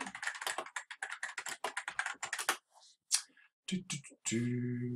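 Rapid typing on a computer keyboard for about two and a half seconds, then a few separate key clicks. Near the end a steady low tone with overtones starts and holds for over a second.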